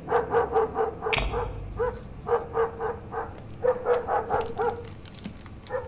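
A dog barking in quick runs of short barks, several a second, falling off near the end. There is a single sharp knock about a second in.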